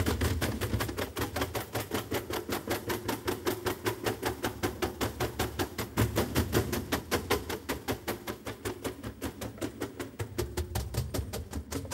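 A group of performers beating wooden box drums with their hands in a fast, even rhythm, about seven strokes a second, over a low steady tone.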